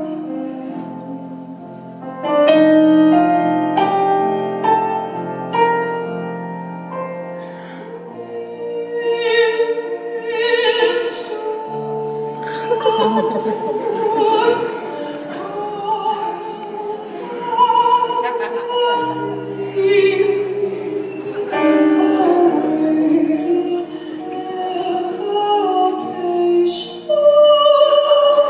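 Live band music without lyrics: struck chords in the first few seconds, then long, wavering melody lines over the accompaniment, with a few sharp accents.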